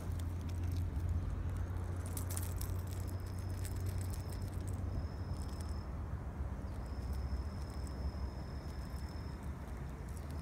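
An insect singing a steady high-pitched trill in stretches of one to two seconds with short breaks, over a low outdoor rumble; a few faint clicks come about two to three seconds in.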